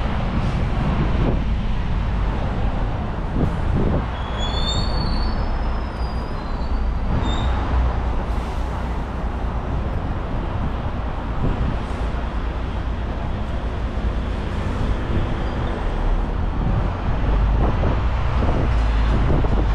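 Steady rumble of a moving tour bus and the traffic around it, with a few brief high squeals about four to five seconds in.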